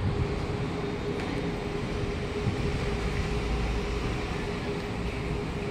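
Elevated station platform ambience: a constant mid-pitched hum over a steady low rumble, with no distinct event.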